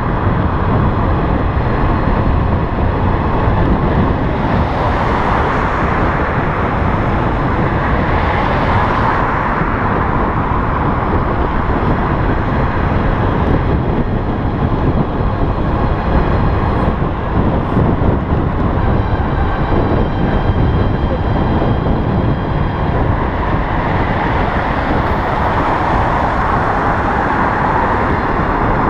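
Steady wind rush and road noise on the microphone of a moving electric bicycle, with traffic swelling louder a few times, around 5 s, 9 s and near the end.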